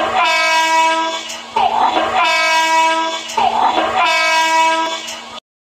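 Train horn sounding three times in a row, each blast a short rushing start followed by a held, steady chord about a second and a half long. It cuts off abruptly near the end.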